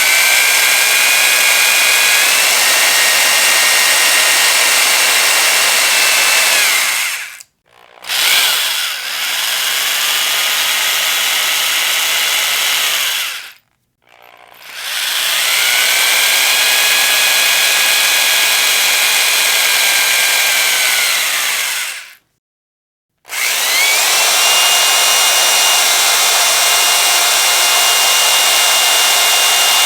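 Electric power drill running in long bursts of several seconds, stopping three times with short silences between. At each restart its motor whine rises as it spins up, and it sinks as the drill winds down.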